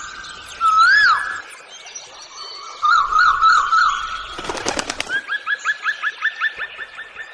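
Bird song: a loud whistled note that rises and falls about a second in, a warbling phrase, then a rapid series of short upslurred notes, about five a second, through the second half. A brief noisy rustle sits between the phrase and the rapid series.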